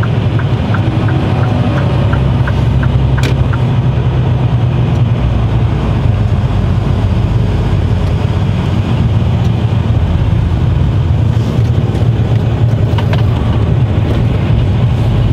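A Mercedes-Benz Actros truck's diesel engine and road noise running steadily, heard from inside the cab. For the first few seconds the turn indicator ticks about three times a second as the truck pulls off the autobahn.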